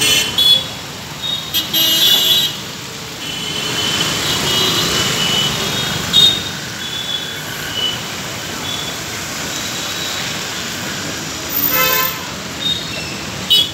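Busy traffic on a rain-wet street: short vehicle horn honks repeatedly over a steady hiss of tyres and engines, with the loudest honk just before the end. A bus passes close by.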